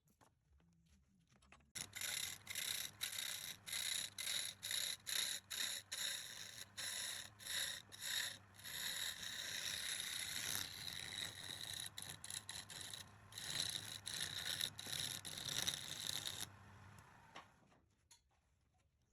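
Wood being worked on a lathe: a hissing scrape of tool or abrasive on the spinning wood, at first in short strokes about two a second, then steadier, then strokes again before it stops a few seconds before the end.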